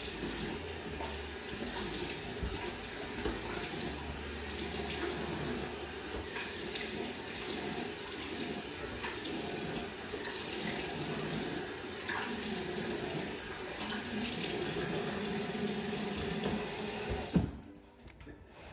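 Bathroom sink tap running, with water splashing as hands rinse soap off a face. The water stops suddenly about a second before the end.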